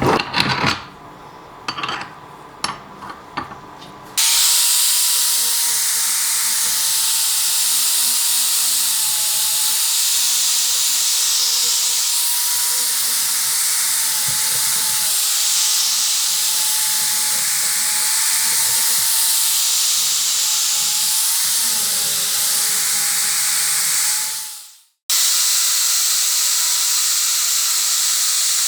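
A few seconds of clicks and knocks, then a power tool running steadily with a loud hiss and a thin whine. It cuts out abruptly near the end and starts again straight away.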